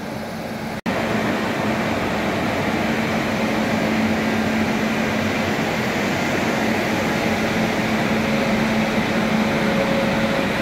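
Indian Railways passenger train running: a steady rushing noise with a constant low hum. A brief cut-out just under a second in.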